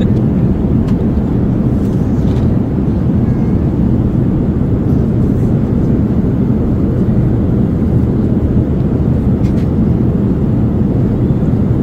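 Steady, deep cabin noise of a jet airliner in cruise flight, heard from inside the cabin.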